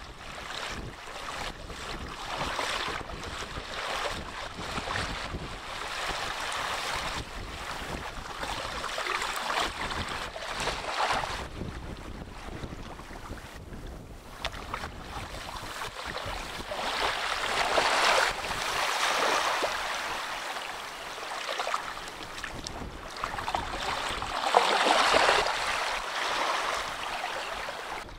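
Small waves breaking and washing over shallow water on a sandbar, the surf swelling and fading every few seconds and loudest twice in the second half. Wind rumbles on the microphone throughout.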